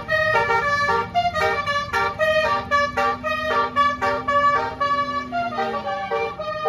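Indonesian bus 'basuri' telolet horn playing a tune: a quick run of short, clipped horn notes that jump between pitches, over a low engine rumble.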